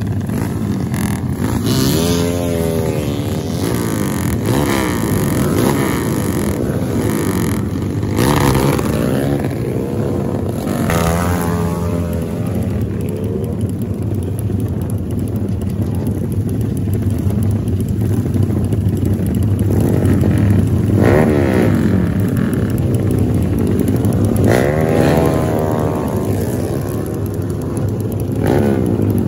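Several modified motorcycles with aftermarket exhausts idling together, with engines being revved again and again, each rev rising and falling in pitch over the steady idle.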